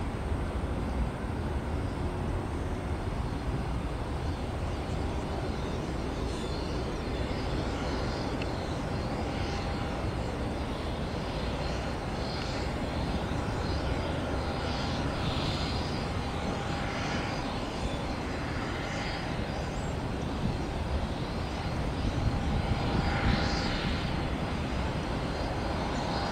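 Airbus A320-family jet airliner rolling out after landing on a wet runway, its engines running with a steady low rumble.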